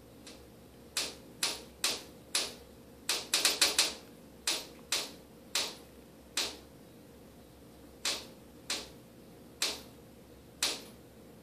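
A series of sharp clicks or taps, irregularly spaced, with a quick run of several about three seconds in.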